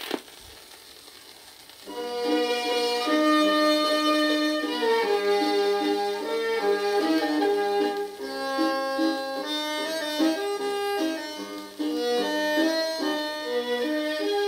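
A turntable stylus dropping onto a vinyl record with a click, a couple of seconds of surface hiss in the lead-in groove, then the instrumental introduction of a 1959 Japanese popular song starting about two seconds in.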